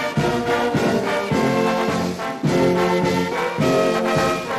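Brass music, with trombones and trumpets playing a tune in a steady rhythm of changing notes.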